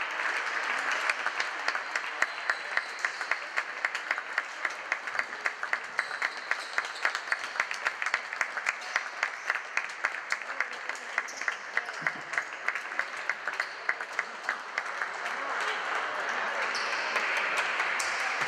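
Rhythmic clapping in a steady beat, about three to four claps a second, over a murmur of voices; the clapping dies away after about fifteen seconds.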